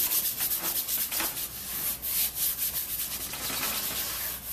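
Paintbrush scrubbing umber oil paint onto a canvas in quick up-and-down strokes, a scratchy rubbing repeated several times a second.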